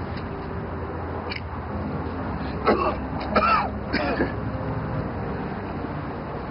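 A man clearing his throat and coughing in three short bursts, a smoker's cough as he draws on a cigarette. A steady low background hum runs underneath.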